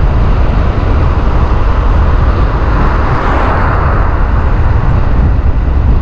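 Loud, steady wind and road noise from a vehicle driving along a tarred road, dominated by a low rumble of wind buffeting the microphone. A rushing noise swells and fades about three seconds in.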